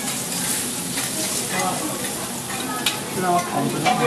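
Food sizzling on a hot teppanyaki iron griddle under a copper dome: a steady hiss with small spatters. A short sharp click about three seconds in.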